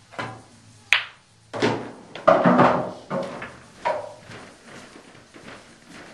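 Pool balls in play: a sharp click of the shot about a second in, then a run of duller knocks over the next three seconds as the balls hit the cushions and one drops into a pocket.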